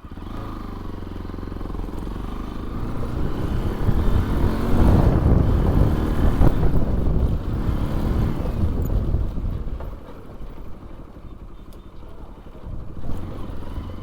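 Bajaj Pulsar NS200 motorcycle engine riding along, with mixed wind and road noise. The revs climb about four seconds in and are loudest through the middle. They drop back around ten seconds and pick up again near the end.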